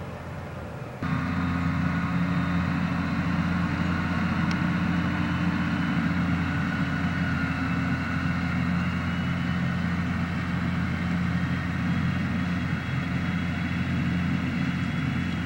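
New Holland T7.290HD tractor's six-cylinder diesel engine running as a steady drone under load while it pulls a mounted plough through the field. The sound jumps suddenly louder about a second in, then holds steady.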